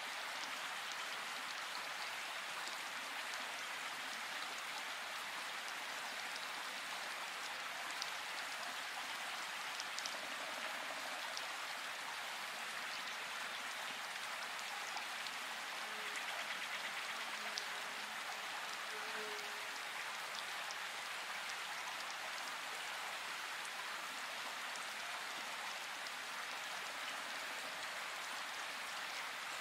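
Steady rain falling, an even hiss with a few faint ticks scattered through it.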